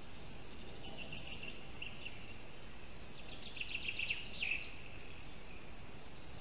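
Forest ambience on a nest camera: a small songbird sings, a short trill about a second in, then a run of quick repeated notes ending in a falling flourish at about four and a half seconds, over a steady high background hiss.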